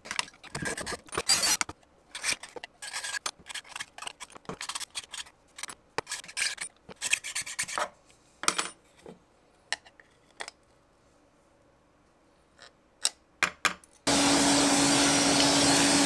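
Utility knife and small file scraping at the edge of a hole in a plastic project-box faceplate, in quick repeated strokes, to widen it to fit a toggle switch's threaded post. Scattered clicks follow, and about two seconds before the end a loud, steady motor whir starts.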